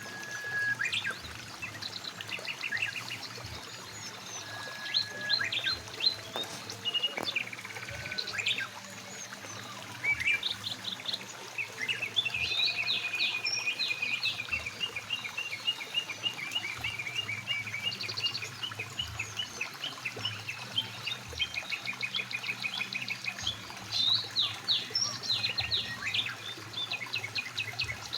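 Several songbirds singing and calling, with chirps and fast trills, over the steady rush of a flowing mountain stream.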